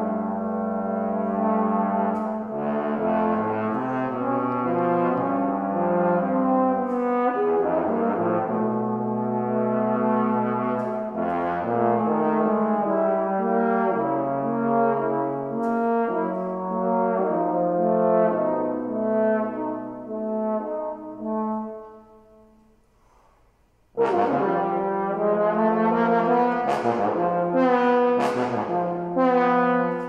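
Tenor and bass trombone duet, the two instruments holding overlapping notes that change in steps. The playing fades out about three-quarters of the way through, leaving a gap of about two seconds, then comes back in suddenly.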